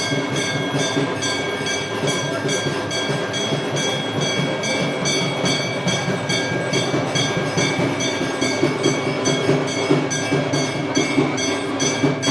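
Temple aarti bells and hand cymbals clanging in a fast, even rhythm, over a steady ringing of bells.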